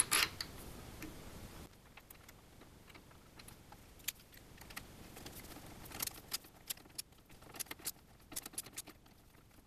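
Faint, scattered metallic clicks and light taps as a stepper motor with its shaft coupling is worked into its mounting bracket and lined up with the ball screw; the taps come more often in the second half.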